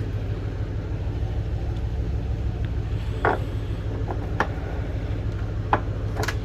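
A vehicle engine idling steadily with a low, even hum, with a few short clicks and knocks of handling over it about halfway through and near the end.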